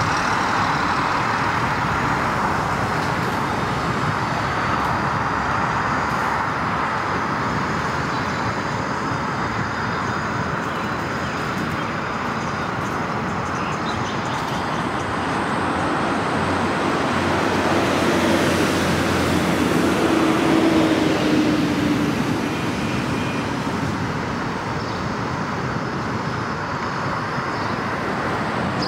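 A car driving along an open city road: steady tyre and road noise that swells louder about two-thirds of the way through, with a faint low engine hum under it.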